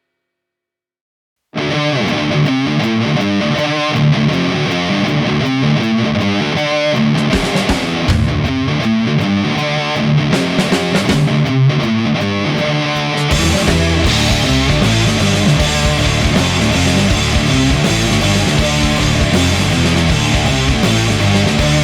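Stoner metal song starting after a short silence: a distorted electric guitar riff comes in about a second and a half in, and the fuller band with drums and cymbals joins about thirteen seconds in.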